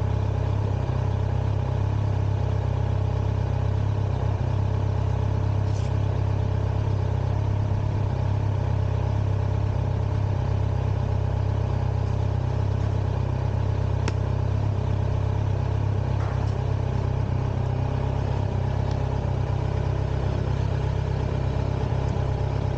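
2021 Kawasaki Z900's inline-four engine idling steadily through its stock exhaust, with no revving.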